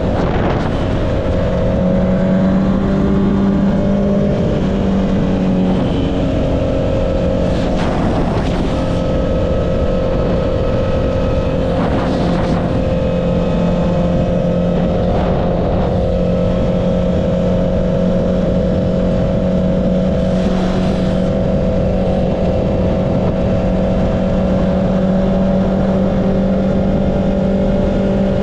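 Honda CB650R's inline-four engine running at a steady cruise through an Akrapovic exhaust, heard from the rider's seat. Its pitch shifts slightly a few seconds in and then holds nearly constant, with wind noise underneath and several brief rushes of noise.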